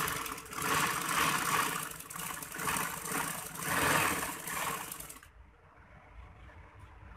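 Sewing machine stitching a seam along a shirt-front placket strip, running at speed in a fast, even chatter that swells and eases about four times, then stops about five seconds in.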